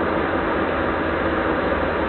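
Steady road and engine noise inside a 2003 Toyota Corolla's cabin while it cruises at highway speed with the cruise control holding the speed.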